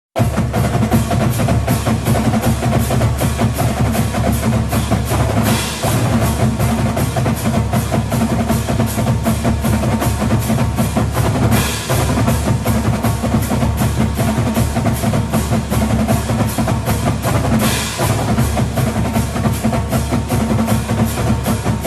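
Percussion-driven music: a fast, even drum beat over sustained low tones, with a hissing swell about every six seconds.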